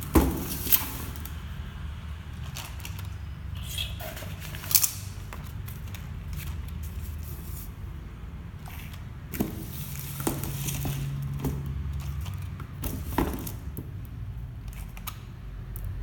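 Small toy-grade RC rock crawler running: a low hum from its electric motor and gears, with scattered sharp clicks and knocks.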